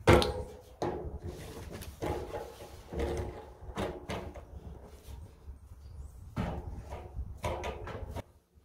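Hands working the old fuel pump assembly's plastic connector and steel fuel lines loose on the top of the steel fuel tank: a run of scrapes, creaks and knocks, loudest right at the start.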